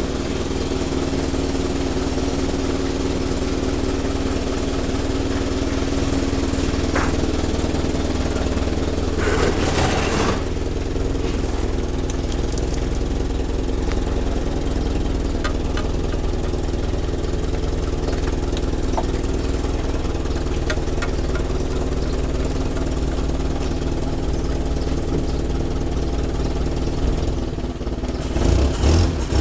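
An engine running steadily at idle, with a brief rush of noise about ten seconds in.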